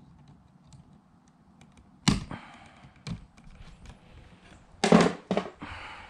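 Hand tools working electrical wires at an outlet box: a few sharp clicks and knocks, with a sharp snap about two seconds in and the loudest pair of knocks about five seconds in, then a brief rustle.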